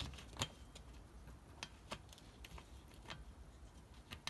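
Faint, irregular small clicks and ticks as the oil strainer cap on a Suzuki Address 110 engine is wound onto its thread by hand. The sharpest click comes about half a second in.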